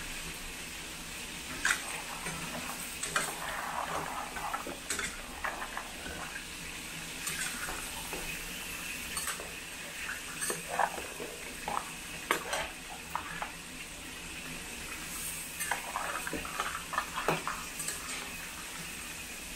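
A metal ladle scraping and clinking irregularly against a stainless steel pan while stirring crab pieces in thick chilli sauce, after a cornstarch slurry has been added, with the sauce sizzling underneath. The clinks come closer together near the end.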